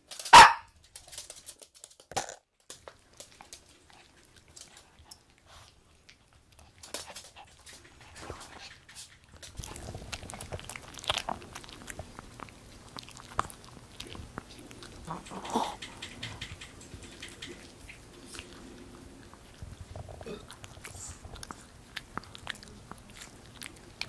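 A Maltese dog gives one sharp bark about half a second in. From about ten seconds on, a Maltese gnaws and crunches a chew stick, with scattered clicks of its teeth over a low steady hum.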